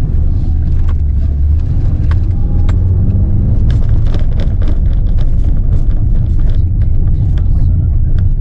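Cabin sound of a Volkswagen Kombi van driving over a rough unpaved dirt road: a steady low engine and road drone, with frequent short clicks and knocks as it rides over the bumps.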